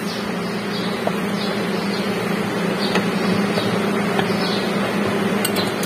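A steady mechanical hum with a few light metallic clicks from handling a sheet-metal motor cover.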